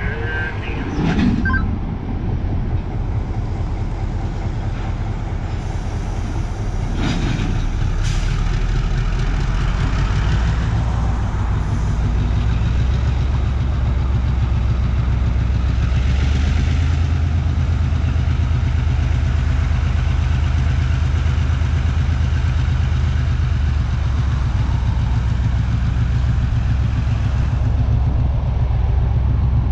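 Diesel switcher locomotive's engine running as it hauls a string of freight cars, a low steady drone that grows stronger about halfway through.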